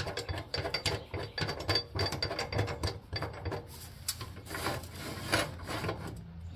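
A lawn tractor seat being worked on its steel slide bracket: metal scraping and rubbing with irregular rattling clicks.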